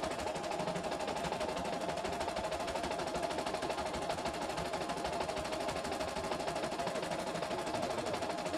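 CNY E960 computerized embroidery machine stitching a design, its needle running with a rapid, even, steady rattle of strokes as the hoop is moved under it.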